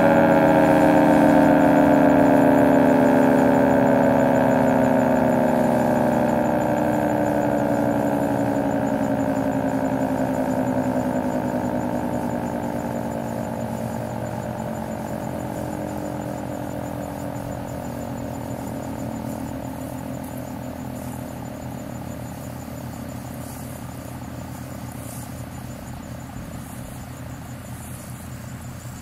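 Federal Signal Thunderbolt 3T22 outdoor warning siren winding down after its test: its chord of several tones glides steadily lower and fades as the rotor slows.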